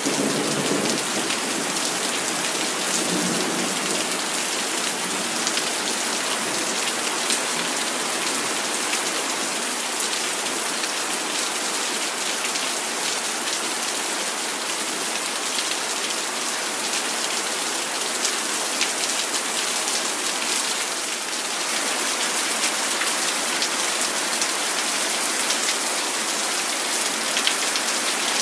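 Heavy rain falling steadily during a thunderstorm, with the tail of a low thunder rumble dying away in the first few seconds.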